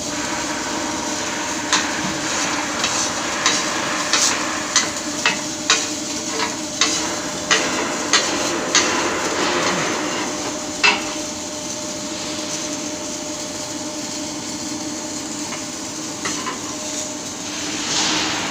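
A series of sharp knocks on metal, roughly one every half second to second for about nine seconds, over a steady hiss and hum of workshop machinery.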